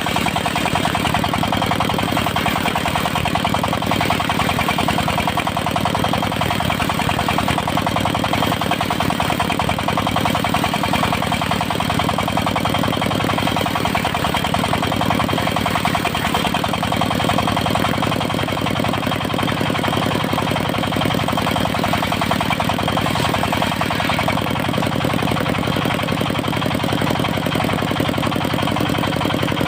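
Engine of a mobile circular sawmill running steadily at an even pitch, with no cutting or change in speed.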